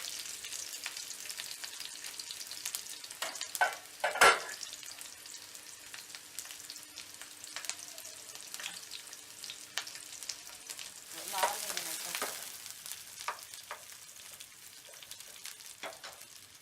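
Sliced onions sizzling as they fry in hot oil in a pan, stirred with a spatula that scrapes and knocks against the pan. One sharp knock comes about four seconds in. The sizzling grows quieter toward the end.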